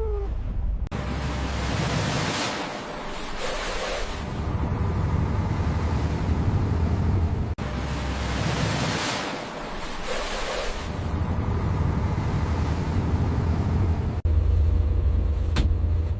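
Sea and wind noise aboard a crab boat under way in rough water: waves washing against the hull and wind buffeting the microphone in surges, over a low rumble.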